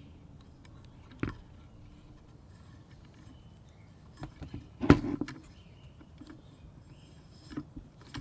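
Hand tools clicking and knocking against the metal blade assembly of an EGO edger while a new cotter pin is pushed in and crimped with needle nose pliers: a sharp click, then a cluster of knocks with one loud clack about five seconds in, and a few light clicks near the end.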